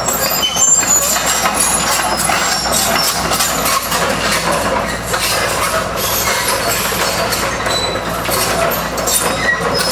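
Tracked excavator's diesel engine running under load while its bucket presses down on the roof of an old junk car, with scattered cracks and crunches of bending sheet metal and breaking glass.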